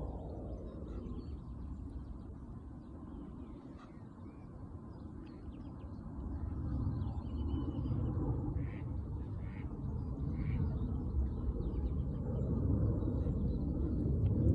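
Waterfowl calling: scattered short calls, thickest from about six to eleven seconds in. Under them is a steady low rumble that grows louder toward the end.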